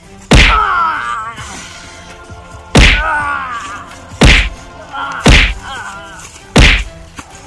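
Five heavy whacks of blows landing on a body, the first about a third of a second in and the rest at uneven gaps of one to two and a half seconds; each is followed by a short wavering, falling groan. Background music plays throughout.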